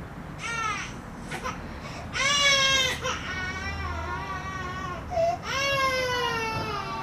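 A toddler crying: a run of high, drawn-out wails that fall in pitch, one wavering in the middle, with the loudest about two seconds in.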